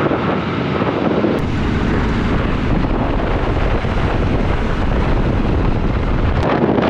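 Wind buffeting the camera microphone of a moving motorcycle, a heavy low rumble over road noise, strengthening about a second and a half in and easing near the end.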